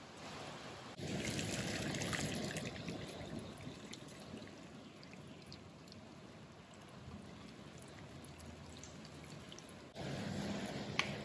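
Water poured from a stainless kettle splashing onto bamboo leaves in a stainless steel bowl: loudest about a second in, then thinning to a softer trickle. Near the end a ceramic plate is set into the bowl with a single sharp clink.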